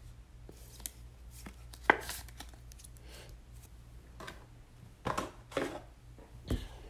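Trading cards being handled: scattered light clicks and brushing swishes, with one sharper click about two seconds in.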